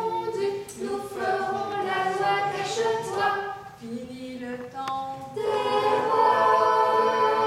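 Mixed choir singing a cappella in rehearsal, holding chords that change every second or so. About five seconds in the voices come together on a fuller, louder chord.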